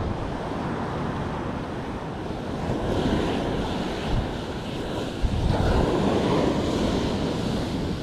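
Ocean surf washing up on the shore, with wind buffeting the microphone. The wash swells about three seconds in and comes in louder from a low thump a little after five seconds.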